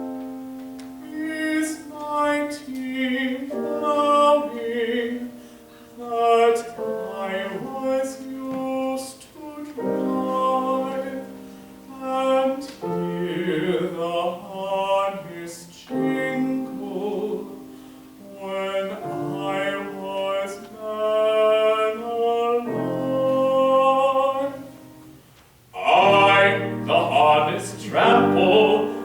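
A classical solo voice singing a slow English art song with piano accompaniment, growing suddenly louder near the end.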